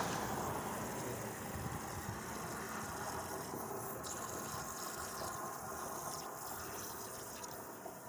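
Water hissing as it leaks and sprays from a black plastic water pipe, slowly getting quieter.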